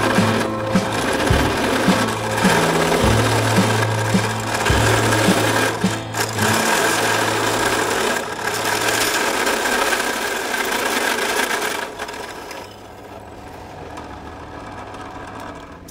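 Steady, rough metalworking noise, easing off about twelve seconds in, under background music with a low bass line.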